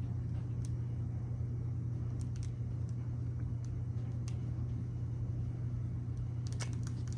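Steady low hum, with a few faint light taps and clicks of a small knife working icing onto a gingerbread cookie on plastic wrap.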